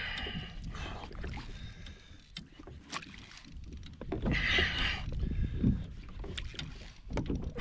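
Sea water slapping against a kayak's hull, with a wind rumble on the microphone, while a Shimano Ocea Jigger reel is cranked against a hooked fish. A brief louder rush of noise comes about four seconds in.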